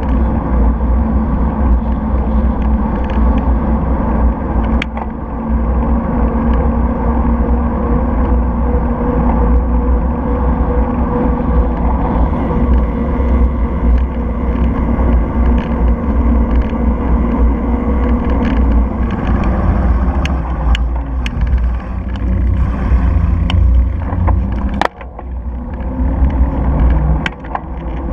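Wind buffeting the microphone of a bicycle-mounted camera, with the steady rush of bicycle tyres rolling on tarmac. From about two-thirds of the way in, scattered sharp clicks and rattles are added, and the rush briefly drops away near the end.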